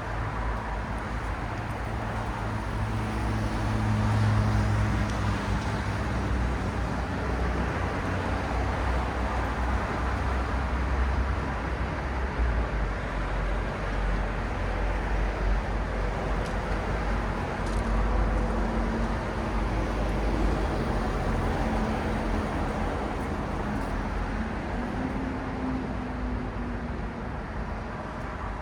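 City road traffic at night: a continuous wash of passing cars, with low engine hum swelling and fading as vehicles go by.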